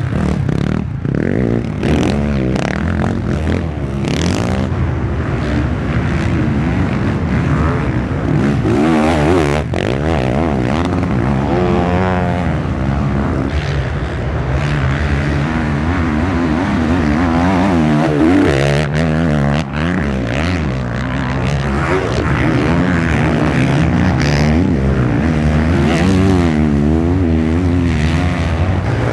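Several off-road motorcycle engines running hard through deep sand, their pitch rising and falling again and again as the riders work the throttle.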